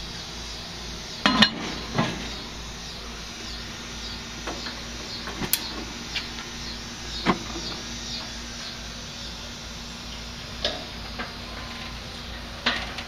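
Scattered knocks and clicks from shutting down a gas grill: the burner knobs being turned off and the lid going onto the cast iron Dutch oven, with the loudest knock about a second in. A high, rapidly repeating chirp runs steadily behind.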